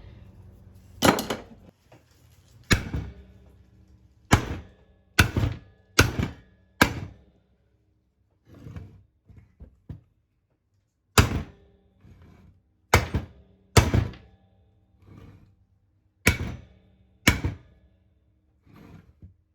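Hammer blows on the metal bottom plate of a two-stroke lawnmower engine: about a dozen sharp, separate strikes, irregularly spaced one to two seconds apart.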